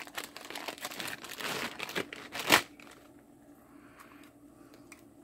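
Clear plastic zip-lock bag crinkling as it is handled, a rapid run of crackles ending in one sharp, loud crackle about two and a half seconds in; after that only a few faint ticks.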